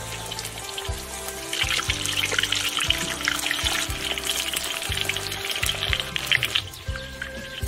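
Breaded chicken wings sizzling and crackling in hot oil as they are dropped in to deep-fry, over background music with a steady beat. The crackle starts about a second and a half in and dies away near the end.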